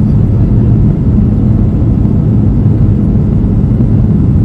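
Steady, loud low rumble of a Boeing 737-500's cabin on approach with flaps extended: its CFM56 turbofan engines and the airflow over the wing, heard from a window seat.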